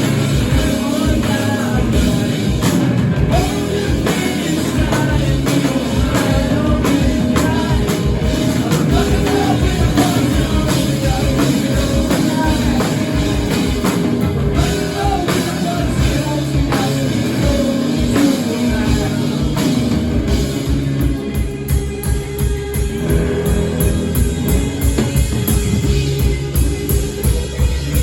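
Rock band playing live, with singing over drums and guitar. Toward the end the drums come through as an even, driving beat.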